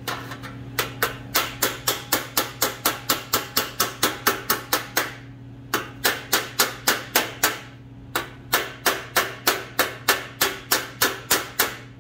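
Body hammer striking a MIG-welded seam in a thin sheet-steel cowl side panel against a dolly held behind it: rapid sharp knocks, about four a second, in runs with two short pauses. Hammering on the dolly stretches the shrunken weld to bring the warped panel back up.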